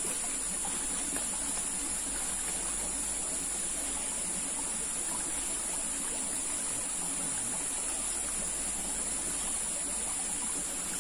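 Small rocky stream running and trickling, with a steady high-pitched hiss over it.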